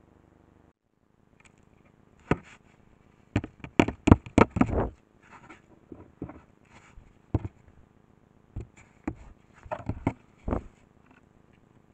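A series of sharp clicks and scrapes close to the microphone, a dense cluster about three to five seconds in, then scattered single clicks until near the end.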